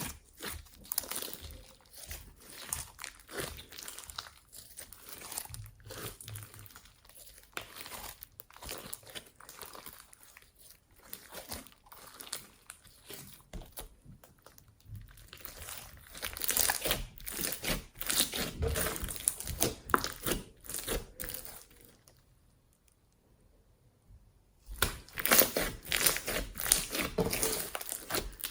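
Slime being squeezed, stretched and pressed by hand, giving a dense run of wet crackles and pops. It stops for about two seconds near the end, then starts again louder.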